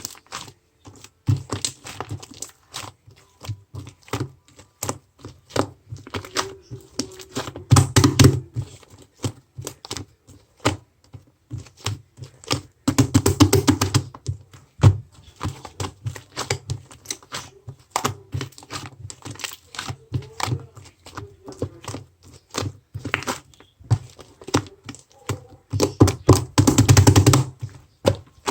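Rapid, irregular clicking and tapping, with louder flurries of knocks about eight seconds in, around thirteen seconds, and near the end.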